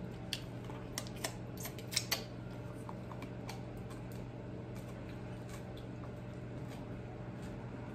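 Close-miked eating sounds: a handful of sharp mouth clicks and crunches in the first two seconds. After that only a steady low background hum remains.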